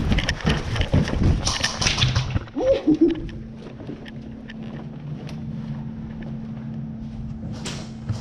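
Running footsteps and gear knocking as players move fast along a hallway, dense thuds for about three seconds. Then quieter, with a steady low hum and a few faint clicks.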